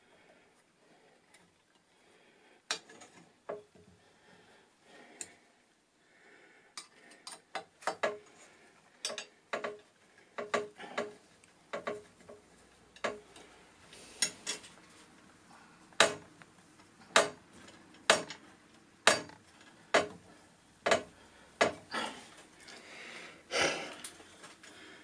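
Sharp metallic clicks and clinks of screws and hand tools against the machine's metal parts as they are fitted by hand. Scattered at first, then a regular click about once a second for several seconds after the middle, with a short scraping rustle near the end.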